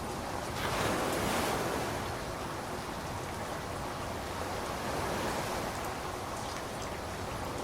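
Steady rain hiss, swelling briefly about a second in.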